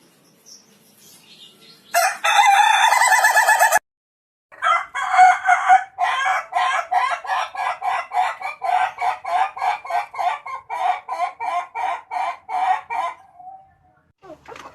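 A rooster crows once, loud and held, and the crow cuts off abruptly. After a short gap comes a long run of rapid, evenly spaced crowing notes, about three a second, lasting some eight seconds and trailing off in a short falling note.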